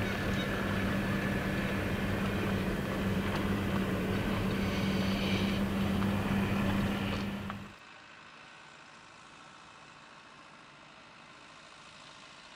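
Steady hum of a car's engine and road noise heard from inside the slowly moving vehicle, cutting off abruptly a little past halfway; a faint steady hiss follows.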